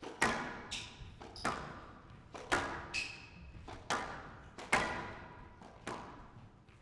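Squash rally: the ball cracks off the rackets and walls about once a second, each hit ringing in the court, with a few short high squeaks of shoes on the floor.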